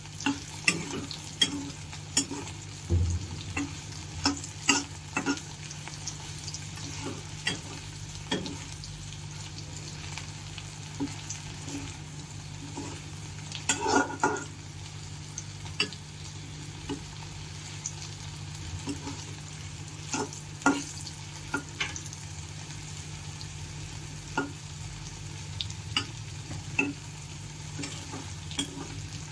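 Paneer cubes frying in oil in a pan with a steady sizzle, while a metal spatula stirs and turns them, clicking and scraping against the pan many times.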